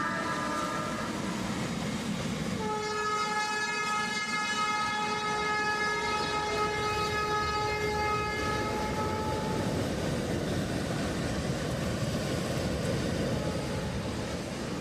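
WAG12B electric locomotive's horn: the tail of one call right at the start, then a long steady blast of several tones together lasting about seven seconds, over the continuous noise of the freight train running past at speed.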